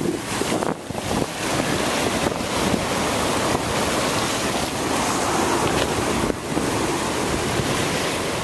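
Ocean surf breaking and washing over black lava rocks, a steady rush of water noise, with wind blowing across the microphone.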